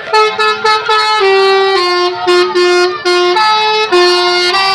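Basuri telolet horn, a multi-tone musical horn, playing a tune: loud held notes that step up and down in pitch without a break.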